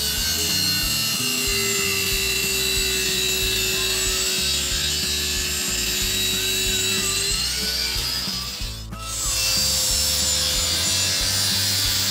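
Table saw cutting through a pine block, the blade's steady whine loaded by the wood. The sound dips briefly about eight and a half seconds in, then the cutting goes on.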